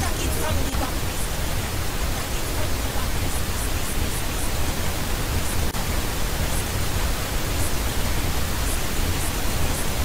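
Pink noise played back from a DAW, a steady full-range hiss at a constant level. A soloed track from the song plays under it and is turned down, so that after about the first second it is barely audible beneath the noise, leaving only faint high ticks. This is the step of setting a track's level against pink noise.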